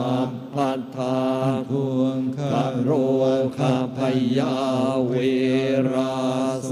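Buddhist monks chanting in unison on a steady monotone pitch, the sound breaking briefly between phrases.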